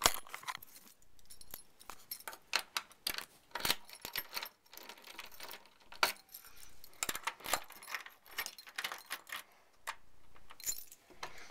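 A bunch of keys jangling, with scattered metallic clicks and scrapes, as a key is worked in a front-door deadbolt in fumbling attempts to lock it.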